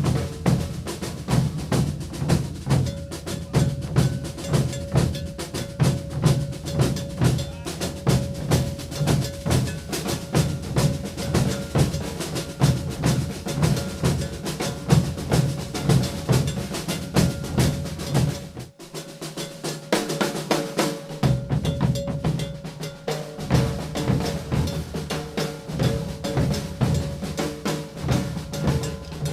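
Maracatu drum ensemble playing a toque: deep alfaia bass drums and snare-type caixas in a fast, steady rhythm. About nineteen seconds in, the deep drums drop out for a couple of seconds, then come back in.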